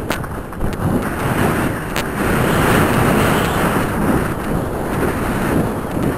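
Wind rushing over a rider-worn camera's microphone as a horse gallops, swelling in the middle, with the horse's hoofbeats underneath and a couple of sharp knocks.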